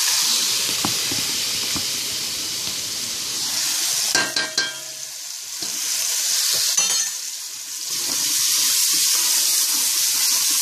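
Bacon, onion and peppers frying in a pot, sizzling steadily as they are stirred with a wooden spoon and sofrito is mixed in. A brief clatter about four seconds in.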